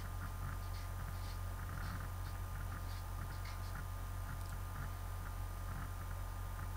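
Room tone: a steady low hum and a faint thin whine, with scattered faint ticks.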